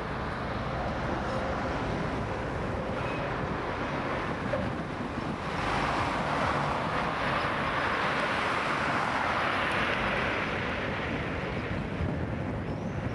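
Road traffic: cars driving along a multi-lane road, a steady hiss of tyre noise that swells as a car passes close from about halfway through and fades again near the end.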